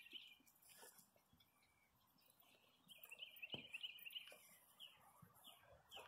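Near silence, with a faint bird trilling in the background: a short rapid trill fading out right at the start and another lasting about a second and a half, beginning about three seconds in.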